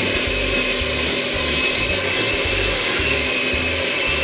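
Electric hand mixer running steadily, a constant motor whine with whirring beaters, creaming margarine with sugar in a glass bowl.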